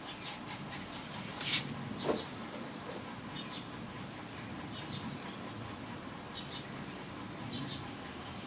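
Gel pen strokes scratching on paper, a series of short strokes with the loudest about a second and a half in. Over them runs a high, steady pulsing chirp at about four to five pulses a second.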